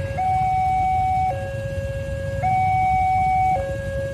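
Railway level-crossing warning alarm sounding a two-tone high-low signal, each tone held about a second and alternating steadily, which warns that the crossing is closed to road traffic. A low rumble, likely from idling motorcycles and traffic, runs underneath.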